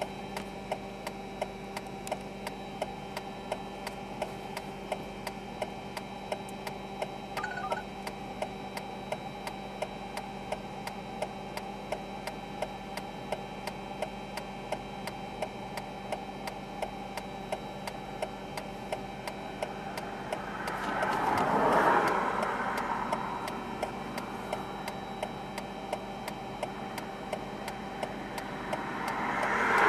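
A vehicle's flasher relay ticks steadily at about two ticks a second inside the stopped car, over a steady low hum. A vehicle swells up and passes about two-thirds of the way in, and another approaches near the end.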